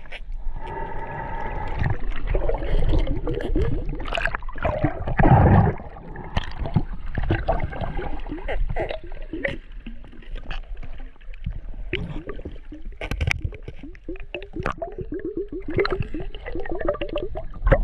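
Water gurgling and splashing around a snorkeller in the water, with irregular clicks and bubbling.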